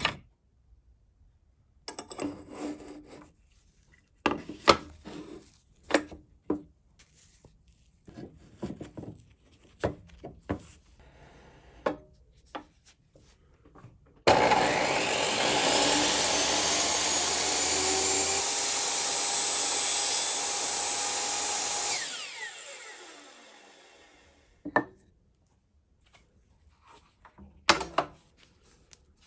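Wooden offcuts clattering and knocking as they are sorted and set down, then a Ridgid table saw switched on: its motor spins up, runs steadily for about eight seconds, and after switch-off winds down with a falling whine. A couple of wooden knocks come near the end.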